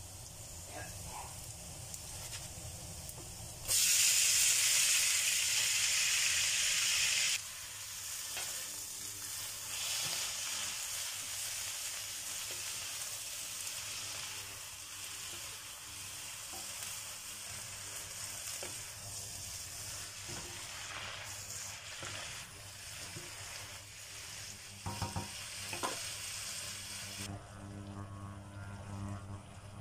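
Shredded cabbage and dried shrimp stir-frying in hot oil in a wok, with a wooden spatula stirring. A much louder burst of sizzling lasts about three seconds, starting about four seconds in, then the sizzling goes on more steadily with light scrapes and taps, and it dies down near the end.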